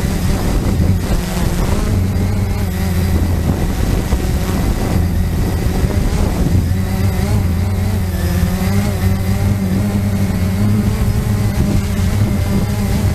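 Cheerson CX-20 quadcopter's motors and propellers running steadily as it holds a hover in strong wind, the pitch wavering slightly as the motors correct, with wind buffeting the onboard microphone.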